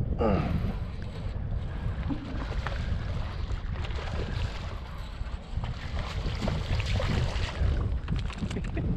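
Wind buffeting the microphone: a steady, gusting low rumble with a hiss above it, with a brief gliding sound right at the start.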